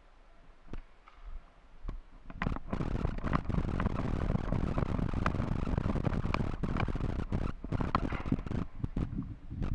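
Close rustling, scraping and knocking, as of gear and clothing rubbing near the microphone, with many scattered sharp clicks. It starts about two and a half seconds in and dies away near the end.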